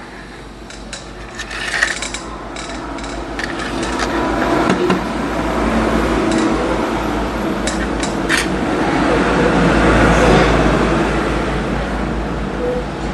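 Hot air rework station blowing steadily while an inductor coil is desoldered from a laptop motherboard. Small metal clicks and scrapes, loudest in the first few seconds, sound over the blowing.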